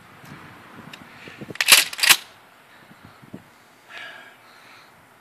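A shotgun fired once, about two seconds in: a short, very loud blast.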